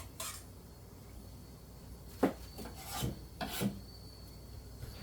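A handful of short rubbing, scraping strokes from sancho sprigs being handled and trimmed by hand. The loudest comes a little past two seconds in, with three more close together just after.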